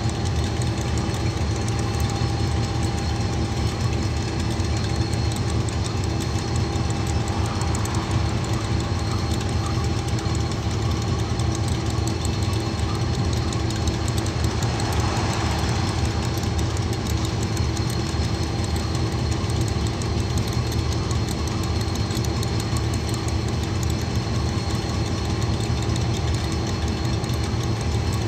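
KiwiRail DX-class diesel-electric locomotive idling steadily: a low engine rumble with a few steady whining tones above it.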